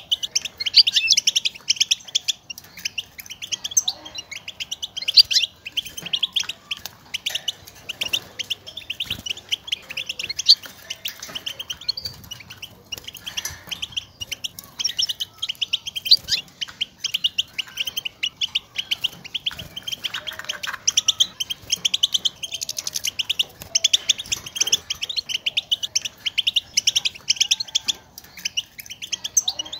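European goldfinch twittering: a dense, continuous run of short, rapid, high chirping call notes. These are the contact calls goldfinches use to call to one another and announce where they are.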